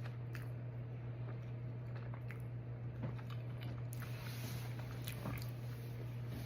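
A person chewing pizza rolls close to the microphone, with scattered wet smacks and small crunches, over a steady low hum.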